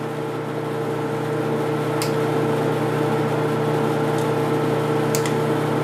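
Steady mechanical hum with a constant tone. A couple of faint clicks come through about two seconds in and again about five seconds in.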